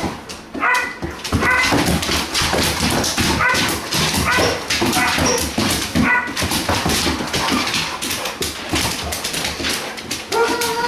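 A Doberman and an Olde English Bulldog at play, giving short whines and yips every second or two, with claws clicking and scrabbling on a hardwood floor.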